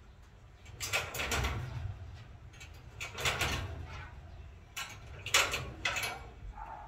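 A dog's paw working the barrel-bolt latch on a metal-barred kennel door, the door and bolt rattling and clacking. It comes in three bouts about two seconds apart, the last the loudest.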